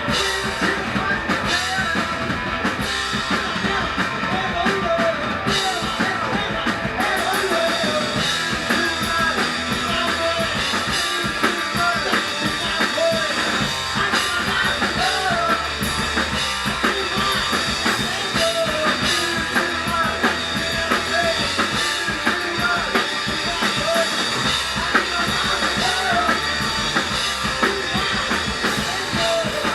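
Garage punk band playing live: drum kit, distorted electric guitars and bass going at full volume.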